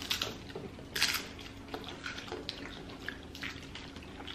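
Crunchy taco shells being bitten and chewed: irregular crisp crunches, the loudest about a second in.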